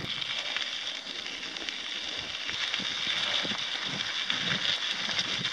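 Mountain bike tyres rolling over a loose gravel trail: a steady crunching hiss full of small crackles.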